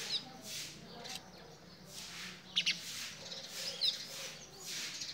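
Birds chirping with short high calls, over a few sharp clicks about halfway through from pigeons pecking grain in a clay bowl.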